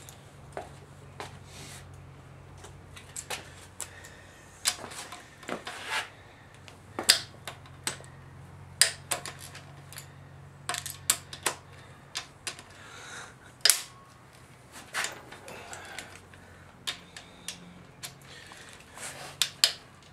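Irregular metallic clinks and clicks of hand tools working on a car engine's cylinder head, some sharp and loud, typical of a wrench or ratchet on bolts and of parts being handled.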